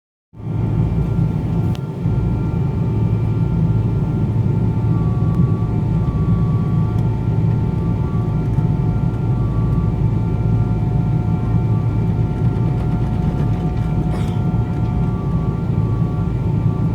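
Boeing 777-200ER cabin noise heard from a window seat: a steady, loud rumble of the engines and airflow with faint steady tones above it, unchanging throughout, and a single small click about two seconds in.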